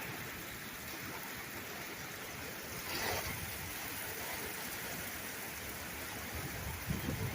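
Heavy thunderstorm rain pouring steadily, with a brief louder swell about three seconds in and a few low bumps near the end.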